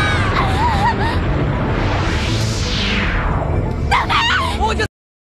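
Cartoon action sound effects: a dense rumble of crashing, tumbling rocks with shouting and screaming voices, a falling whoosh about two to three seconds in, and cries of "No! Princess!" near four seconds. The sound cuts off abruptly just before the end.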